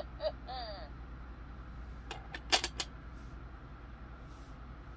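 A coin being set down on the coin bank's pile of plastic gold coins: a few sharp light clicks a little over two seconds in.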